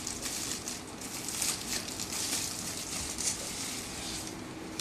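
Packaging being handled and unwrapped: irregular rustling and crinkling with short crackles, as the contents of a boxed Instax Mini 8 camera are pulled out.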